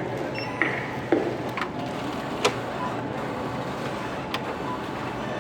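Handling noises at a checkout counter: a few sharp clicks and knocks, the loudest about two and a half seconds in, over a steady background hum.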